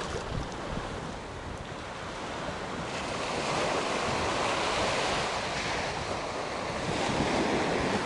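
Black Sea waves washing against a concrete pier, then surf breaking on a sandy, shelly beach, with wind rumbling on the microphone. The surf grows louder about three seconds in.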